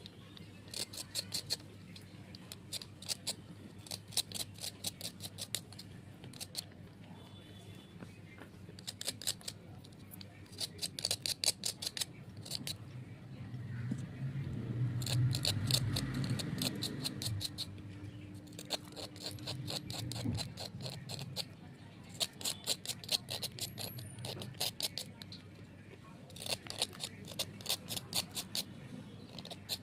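Brittle, clay-coated white slate crunching in quick runs of crisp clicks, several seconds at a time with short pauses between. A low rumble swells in the middle and fades.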